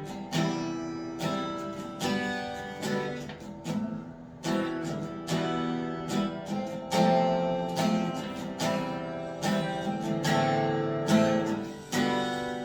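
Acoustic guitar strummed in a steady rhythm, about two strokes a second, playing the chord introduction to a worship song before the singing comes in.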